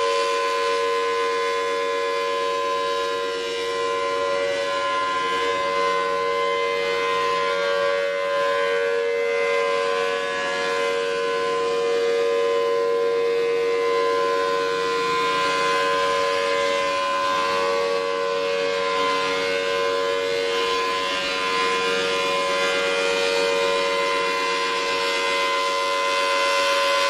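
Outdoor tornado-warning siren sounding a steady, unbroken tone at one pitch, the alert signal for a tornado warning.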